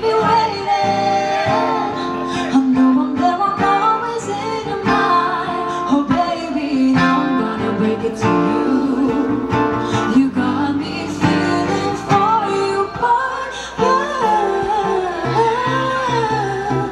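Pop song performed live over a loud sound system: guitar-led backing with voices singing, the vocal line growing more prominent near the end.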